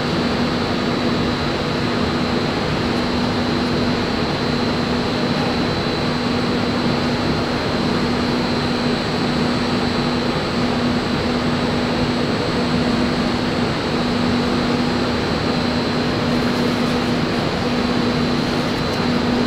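Ventilation fan running steadily: a continuous rushing noise with a low, constant hum.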